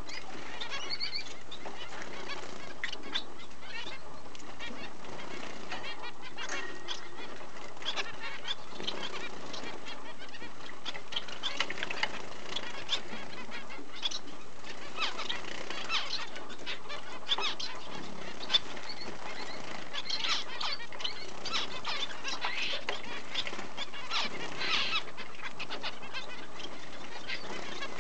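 Small cage birds chirping and fluttering: a steady stream of short, high calls and quick rustles of wings, busier in the second half.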